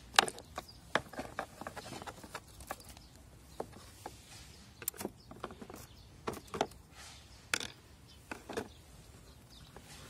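Irregular clicks and knocks of hands and tools handling parts of a scooter, about a dozen spread unevenly, the loudest about a quarter-second in.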